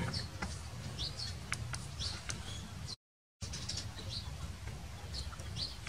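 Small birds chirping in short, repeated calls over a steady low background rumble, with a few light clicks; the sound cuts out completely for a moment about halfway through.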